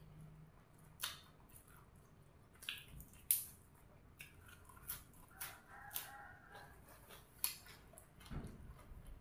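Close-up eating sounds: sharp clicks and crunches of a person chewing raw leafy greens. A rooster crows faintly in the background once, for about two seconds, a little past halfway.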